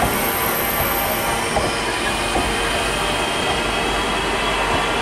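A train running at a station platform: a steady mix of rail noise and the hum of the train's machinery.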